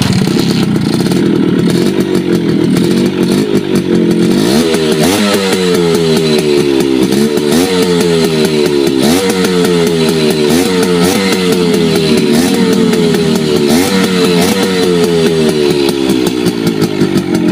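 Suzuki X4 motorcycle engine running through its exhaust pipe with no silencer fitted. It idles for the first few seconds, then is revved in quick blips about once a second, each one rising sharply and falling back, and settles to idle near the end.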